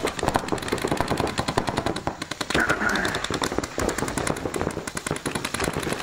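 Paintball markers firing in rapid, continuous streams of sharp pops.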